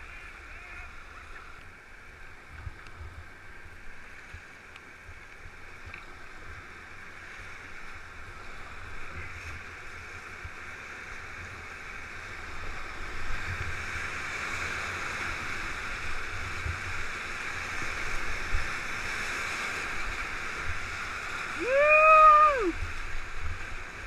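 Whitewater rapids rushing around an open canoe, growing louder about halfway through as the boat runs into rougher water. Near the end, a person gives one short shout that rises and falls in pitch.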